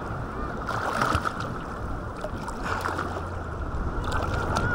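Sea water sloshing and lapping against a camera held at the surface by a swimmer, with a few small splashes from kicking.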